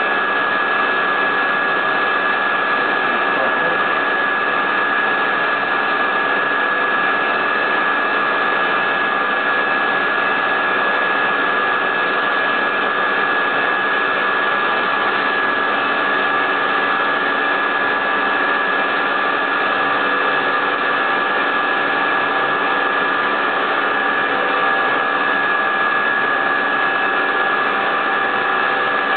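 High-speed CNC milling spindle running steadily while a micro end mill cuts the workpiece: one constant high whine over an even rushing noise, with no change in pitch or level.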